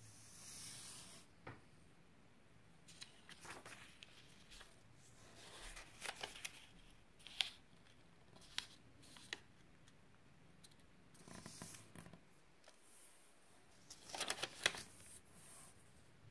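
A sheet of origami paper handled and folded by hand on a tabletop: faint rustling swishes as it slides and turns, with a few sharp crisp snaps as folds are pressed flat. A louder cluster of rustles and snaps comes near the end.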